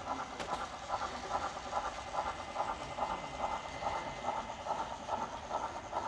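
Sound decoder of a model NSW 30 class steam locomotive playing a steady, even steam chuff, about two to three beats a second.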